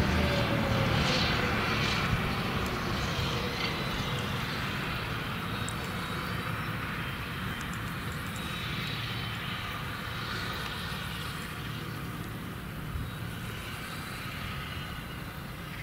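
Claas Jaguar 970 forage harvester's large diesel engine running with a steady low drone, slowly fading as the machine drives away.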